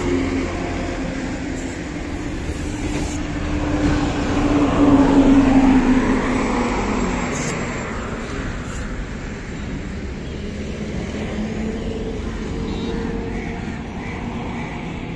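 Road traffic going past, with one vehicle passing close about five seconds in, its engine note falling in pitch as it goes by, over a steady background of traffic.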